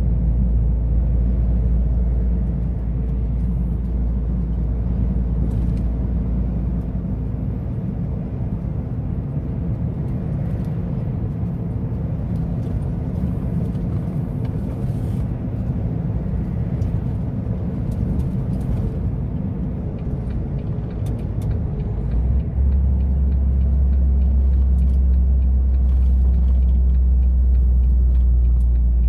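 Volvo truck's diesel engine and road noise while driving, a steady low rumble. The low drone steps up and gets louder about two-thirds of the way through.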